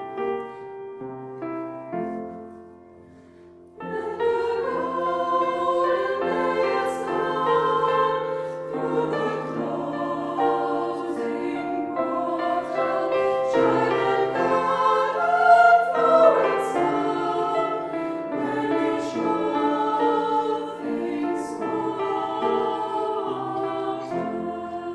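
Mixed choir singing with piano accompaniment. The piano plays alone at first, then the choir enters about four seconds in and sings on in full harmony.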